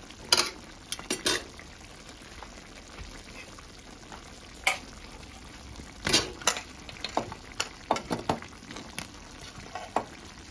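Chicken curry sizzling and simmering in a stainless steel pot as its liquid cooks down, with scattered sharp knocks and clinks of a spoon against the pot and of whole peeled potatoes being dropped in, most of them from about six to eight seconds in.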